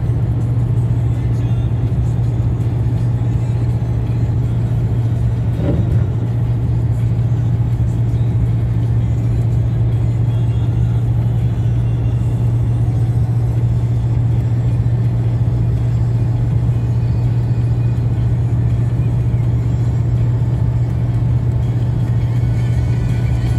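Steady low drone of a car's engine and tyres on a wet road, heard from inside the cabin.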